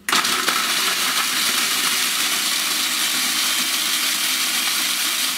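Food processor running, its blade chopping sweet biscuits into fine crumbs. It starts abruptly, runs steadily, and cuts off near the end.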